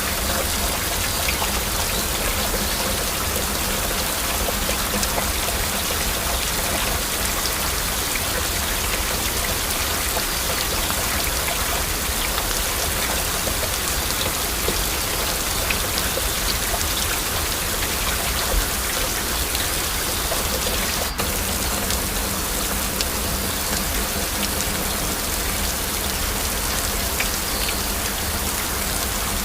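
Heavy rain falling steadily, a dense hiss of countless individual drop hits, with a momentary dip in the sound about two-thirds of the way through.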